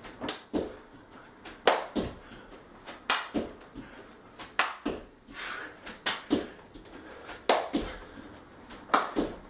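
Feet landing on an exercise mat over a wooden floor during squat jumps with the feet jumping out and back in: sharp thuds in pairs, about one pair every second and a half.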